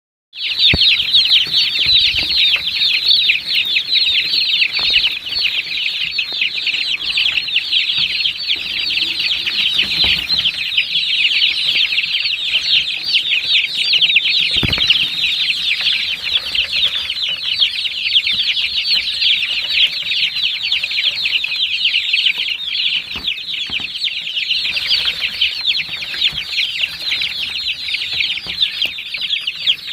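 Many young chicks peeping together in a continuous high-pitched chorus of short chirps, with a few faint knocks.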